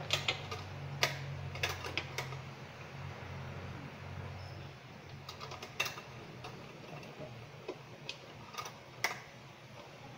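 Irregular light clicks and knocks as an opened rice cooker's housing and internal parts are handled and turned over, with the louder ones about a second in, near six seconds and near nine seconds.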